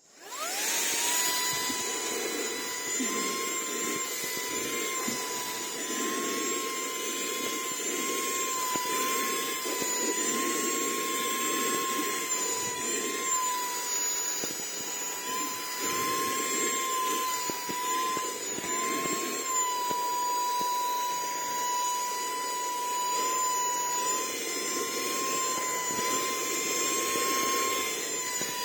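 SERVOMASTER 12000Pa cordless handheld vacuum switched on, its motor spinning up within about a second to a high, steady whine over rushing airflow. The pitch wavers slightly as it runs.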